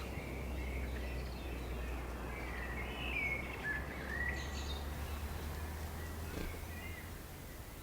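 A songbird singing scattered whistled notes that slide up and down, over a steady low rumble of outdoor background.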